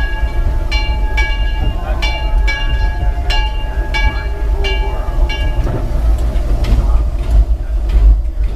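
Steam locomotive bell ringing steadily, about one and a half strokes a second, stopping about six seconds in, over a constant low rumble.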